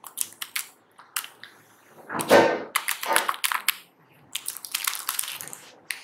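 Buttons of a handheld calculator being pressed in a run of small, sharp clicks, mixed with a few louder rustling handling noises from paper pages.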